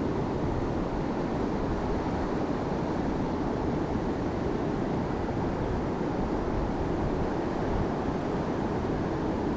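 Mountain stream water rushing steadily over rocks, a constant low rushing noise.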